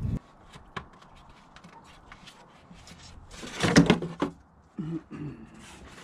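Plastic engine cover of a Ford 3.5-litre EcoBoost being worked loose from its mounts and lifted off by hand: scattered light plastic clicks and rubbing, with a louder burst about three and a half seconds in.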